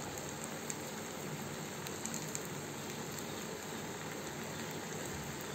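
Peas and masala sizzling steadily in oil in a kadhai, with a few faint crackles.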